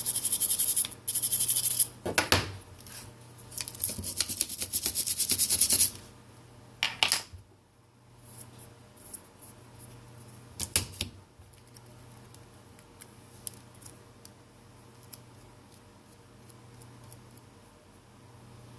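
Rapid scratching and scrubbing on a phone's battery connector as its contacts are cleaned, lasting about six seconds, then two short clicks and faint handling.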